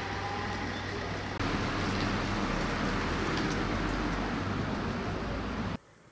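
Steady street background noise with a low engine rumble from motor traffic. It gets a step louder about a second and a half in, then cuts off suddenly near the end, leaving only a faint hush.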